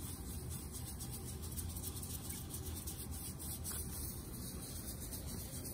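Faint, steady soft rubbing of a newsprint strip being wiped gently over an inked acrylic drypoint plate, over a constant low room hum.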